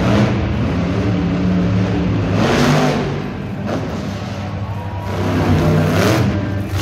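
Monster truck's supercharged V8 revving hard in repeated surges, pitch rising and falling as the truck drives at and launches off a dirt mound, loudest about two and a half seconds in and again near the end.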